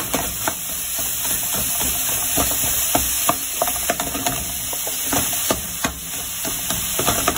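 Crumbled Tuscan pork sausage meat frying in a metal pot with a steady sizzle, while a wooden spoon breaks it up and stirs it, knocking against the pot many times.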